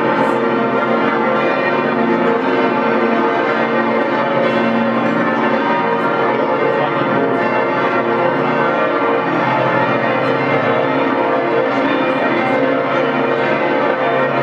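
Church bells pealing, several bells ringing at once in a continuous, steady wash of overlapping tones.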